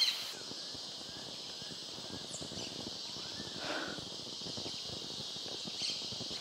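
Steady high-pitched insect chorus buzzing in the trees, with footsteps through grass underneath and a bird calling once about halfway through.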